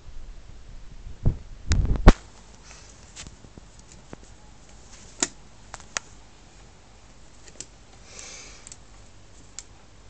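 A few dull knocks about two seconds in, then scattered single sharp clicks and taps, with a brief hiss a little after the middle.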